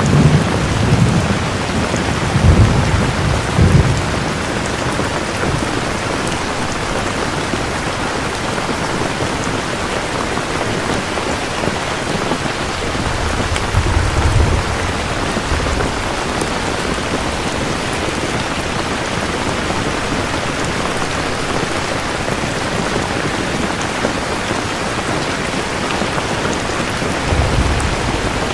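Steady rain with thunder. A low rolling rumble of thunder comes in the first few seconds, another about halfway through, and a short one near the end.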